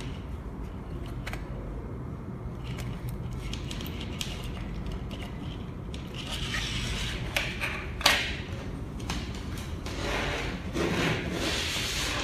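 Handling noise from an LVDS cable and its small plastic connector rubbing and scraping against an LCD controller circuit board as it is plugged in, with light clicks and one sharp click about eight seconds in. Denser rustling follows as the LCD panel is picked up near the end.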